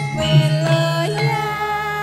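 Javanese gamelan playing, with struck metallophone notes ringing on. About a second in, a female sinden's voice comes in on a long held note with a wavering vibrato.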